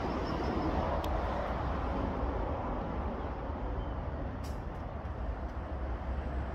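Steady road traffic rumble, strongest at first and easing off a little after the first couple of seconds.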